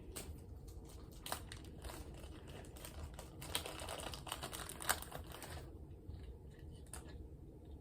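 Packaging of a mini lamp kit being handled: crinkling and rustling with scattered small clicks, thickening into a denser stretch of rustling in the middle.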